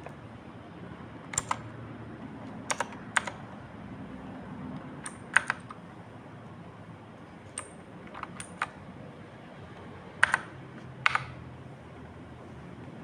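Clicky Outemu Blue mechanical keyboard switches pressed as single keystrokes at irregular intervals, some in quick pairs, with the loudest strokes near the end.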